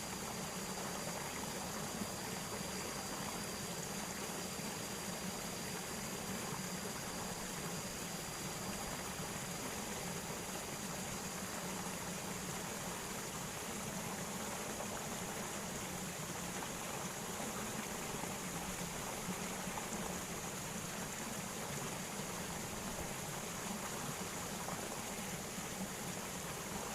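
Steady rushing of flowing water with no breaks, and a faint thin high whine that fades out about halfway through.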